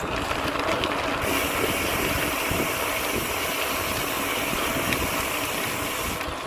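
Steady rushing noise from the moving ride, wind and road rumble on the microphone of a camera carried along on a bicycle.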